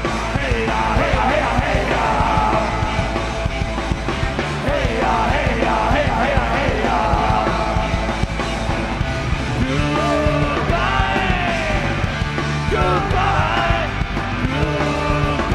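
Live punk rock band playing loud and steady: electric guitars, bass and a drum kit, with a voice yelling over the band.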